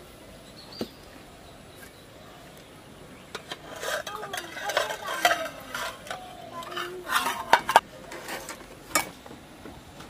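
Aluminium plate lid and metal tongs clinking and scraping against a clay cooking pot as the pot of steamed fish is taken off the fire. The first few seconds are quiet but for one click, then a scatter of sharp knocks and scrapes, the loudest near the end.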